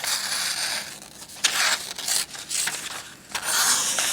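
Knife blade slicing through paper in several rasping strokes, with a sharp click about one and a half seconds in.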